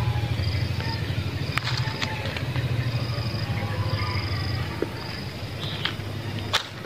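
Outdoor ambience in a rubber plantation: a high insect trill that comes and goes about once a second over a steady low hum, with a few snaps and crackles of dry leaves underfoot near the end.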